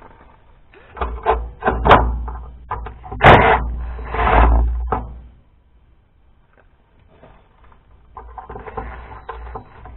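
Hand tools clattering and knocking on a tractor's hydraulic hose fittings while a coupling is being loosened, a run of irregular metallic strikes with a low rumble from about one to five seconds in. Fainter handling noise follows near the end.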